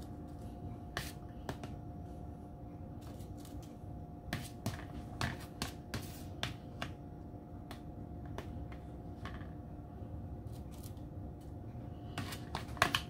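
Scattered light clicks and scrapes of a spoon working avocado mixture into crisp tortilla chip scoops on a plate, over a steady faint hum.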